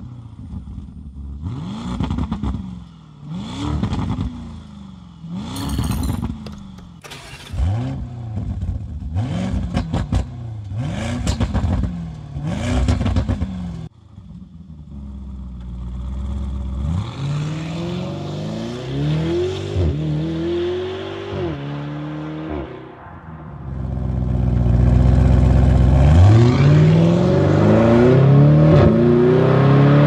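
Lamborghini Urus twin-turbo V8 on its stock exhaust in Corsa mode, revved in a series of quick throttle blips with sharp crackles between them. From about halfway it accelerates hard, the note climbing and dropping back with each upshift, loudest near the end.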